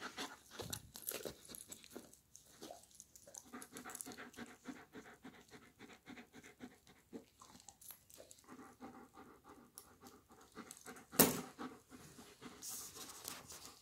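German Shepherd panting fast and steadily, as a dog does after a hard workout. One sharp knock comes about eleven seconds in.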